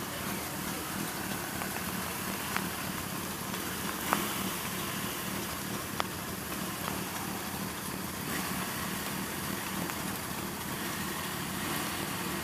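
Several motorcycle engines idling together in a steady drone, with three short sharp clicks a second or two apart.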